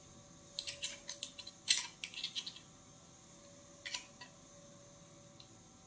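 Sharp clicks and light rattling of small plastic parts as a GoPro in its frame is fitted and screwed onto a small tripod mount: a quick run of clicks starting about half a second in and lasting about two seconds, then one more click a little before four seconds.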